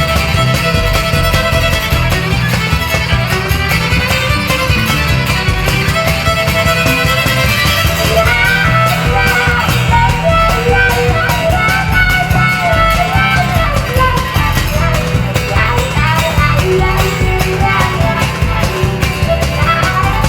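A rock band playing an instrumental passage with no vocals: a melodic lead line winding up and down over a steady beat and a heavy bass.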